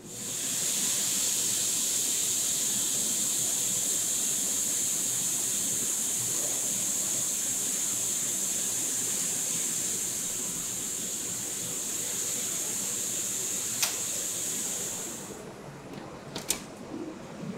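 Steady high-pitched hiss from factory equipment, cutting off suddenly near the end, with a sharp click just before it stops and another soon after.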